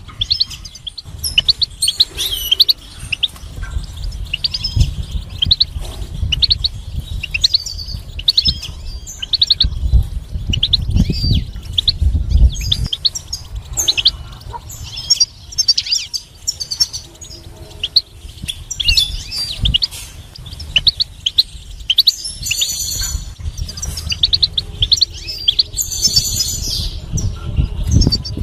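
European goldfinch singing: a fast, unbroken run of high twittering chirps and trills, with buzzier, rasping phrases about three-quarters of the way through and again near the end. A low rumble sits underneath, strongest around the middle.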